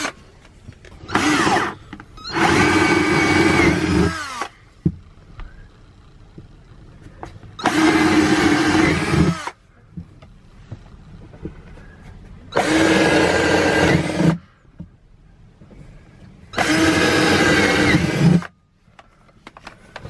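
Cordless drill with a 10 mm bit boring four holes through a thin plywood cabinet panel. It makes four runs of about two seconds each, with a short blip of the trigger just before the first, and the motor's pitch drops as each run ends.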